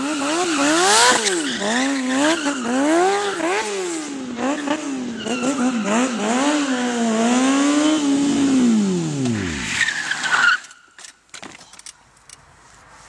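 Sport bike engine revving up and down over and over as the rear tyre spins and squeals on asphalt in a stunt drift with tyre smoke. About ten seconds in the revs fall away and the sound cuts off, followed by a few faint clicks.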